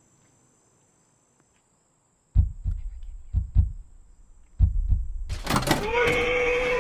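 Near silence, then pairs of dull, low thumps from inside a car's trunk. About five seconds in comes a loud burst as the trunk lid opens, followed by a gagged man's muffled screaming.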